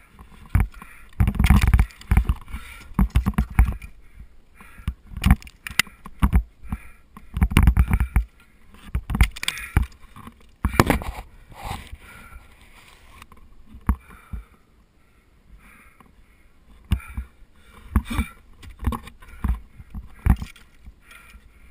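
Ice tools and crampons striking into a steep ice wall: irregular thunks and chips of ice, heard close up. The strikes are heaviest in the first half and ease off for a couple of seconds after the middle.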